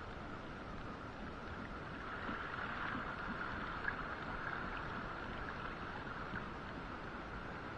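Steady wind and water noise at sea, a little louder for a few seconds in the middle, with one faint tick about four seconds in.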